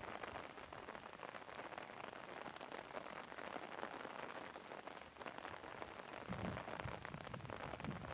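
Steady rain patter, a fine even crackle, with some low rumbling in the last couple of seconds.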